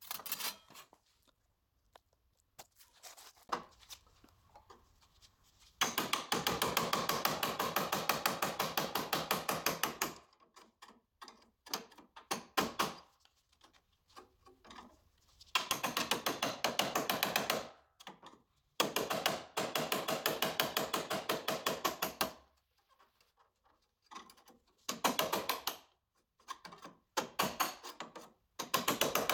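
A tool rattling rapidly against car-body sheet metal in five bursts, each lasting one to four seconds.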